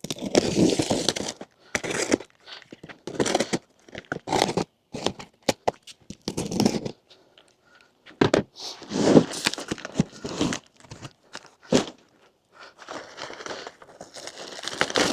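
Cardboard boxes and packing material being torn open and handled: irregular tearing, crinkling and scraping with a few sharp clicks, in stops and starts.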